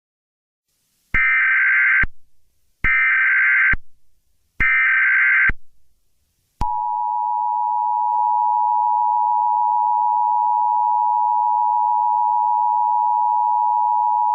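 Emergency Alert System SAME header: three short bursts of digital data screech, each about a second long. They are followed, about six and a half seconds in, by the steady two-tone EAS attention signal.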